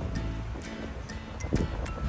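Background music: held tones with a few short percussive hits.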